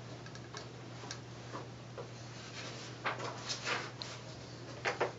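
Veterinary Doppler blood-pressure monitor picking up a cat's pulse in the forelimb: a run of short whooshing beats over a steady low hum, the beats growing louder from about three seconds in.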